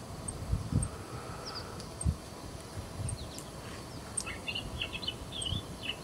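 Juvenile song sparrow subsong: quiet, rambling twitters and chirps, starting about three seconds in, over faint outdoor hiss with a few low thumps near the start.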